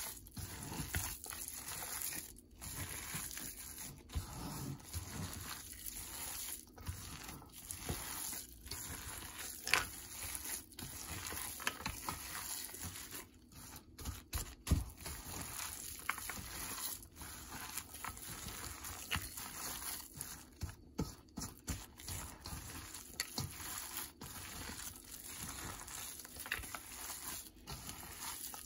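A gloved hand kneading and squeezing minced pork with chopped vegetables in a stainless steel bowl: an irregular run of soft squishing and crinkling, with a few sharper taps, the loudest about ten and fifteen seconds in.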